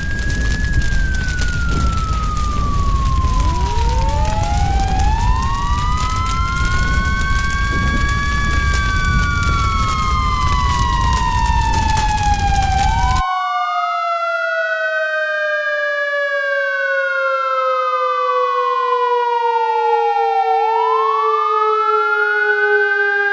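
Siren sound effects: a siren wailing, rising and falling slowly in pitch over a low background rumble, then, about thirteen seconds in, an abrupt cut to a cleaner siren that also rises and falls and ends on a long falling tone.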